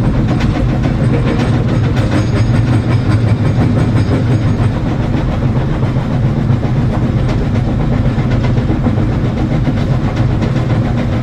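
Excavator's diesel engine running steadily under load, with frequent clanks and knocks of rock against the steel rock bucket.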